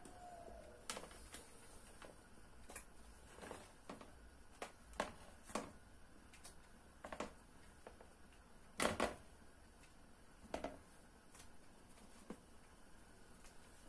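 Pieces of khinkal dough dropped one by one into a pot of hot broth: a series of faint, irregularly spaced soft plops and splashes, the loudest about nine seconds in.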